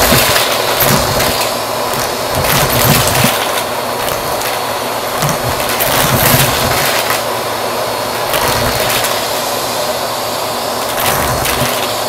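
Bissell vacuum cleaner running steadily through its hose, with coins rattling and clattering as the nozzle sucks them up off the carpet.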